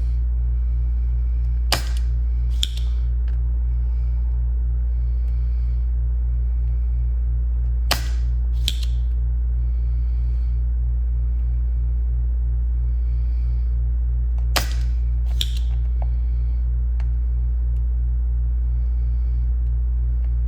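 A spring-loaded desoldering pump snapping three times, each snap followed by a second click a moment later, over a steady low electrical hum.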